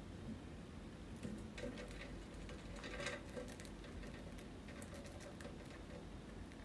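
A hamster nibbling and gnawing a thin dried treat: faint, quick crunching clicks, busiest in the middle.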